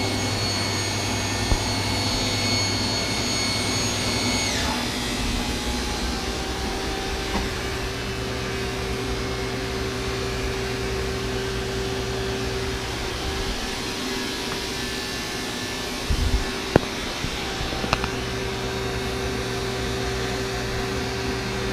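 CNC lathe machining with flood coolant spraying. A high spindle whine winds down about four and a half seconds in, then the machine runs on with a steady hum, with a few sharp clicks near the end.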